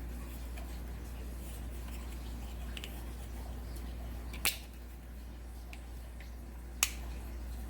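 Two sharp clicks, about two seconds apart, with a few faint ticks, over a steady low hum.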